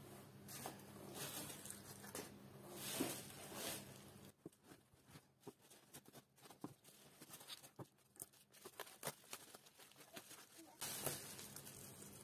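Bubble wrap and kraft paper rustling and crinkling as potted plants are unwrapped from a parcel: a few soft bursts of rustling, then lighter scattered crackles and small taps.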